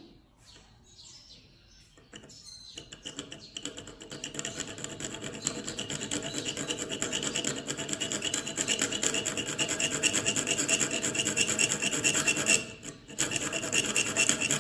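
Metal file sharpening saw teeth in quick, even back-and-forth strokes, about four a second. The filing starts about three seconds in and grows louder, with a brief pause near the end.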